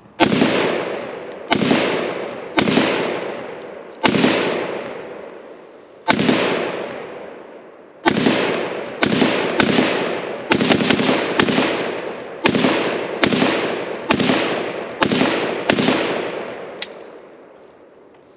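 Zastava M77-PS semi-automatic rifle in .308 (7.62 NATO) firing about sixteen shots, each a sharp report with a long echo trailing off. The shots come every second or two at first, then pick up to roughly one a second in the second half.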